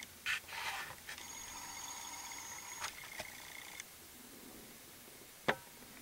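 Faint, steady whine of a camcorder's zoom motor, held for a few seconds, with a brief rustle near the start and a single sharp click about five and a half seconds in.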